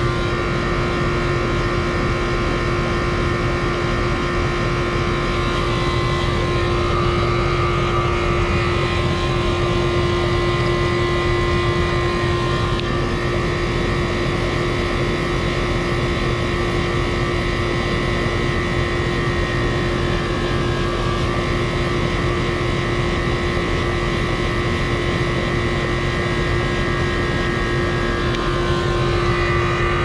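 Running 4-ton R-410A outdoor condensing unit: compressor and condenser fan giving a steady hum with one strong constant tone and fainter higher whining tones.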